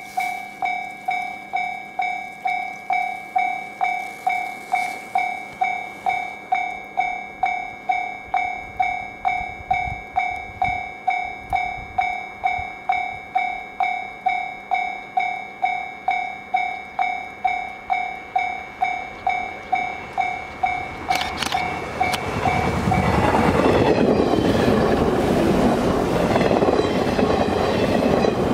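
Japanese level-crossing warning bell ringing at a little over two strikes a second. About 22 seconds in, a 583-series electric train passes loudly with the rumble and clatter of its wheels, drowning out the bell.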